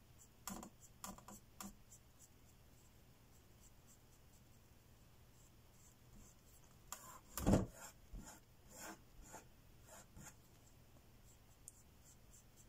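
Paintbrush strokes scratching and rubbing over an acrylic painting, in short clusters, with a single louder dull knock about seven and a half seconds in.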